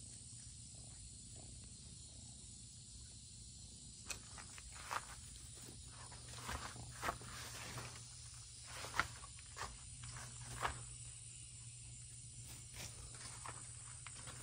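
Quiet outdoor background with a steady low hum. From about four seconds in come scattered soft footsteps and rustles on dirt and leafy ground.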